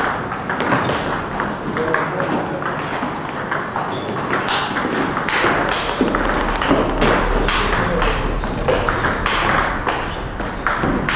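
Table tennis ball being played in rallies: sharp, irregular ticks as the ball strikes the rubber bats and the table top.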